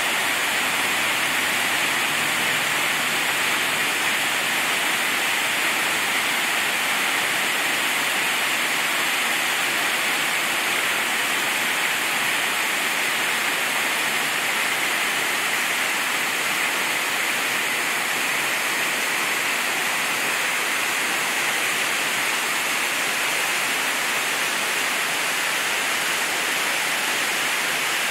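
Small creek tumbling over rocks, a steady rush of water.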